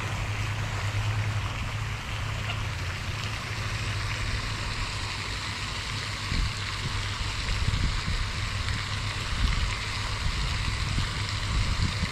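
Steady rushing splash of a pond's spray fountain, with wind buffeting the microphone in low gusts that grow stronger about halfway through.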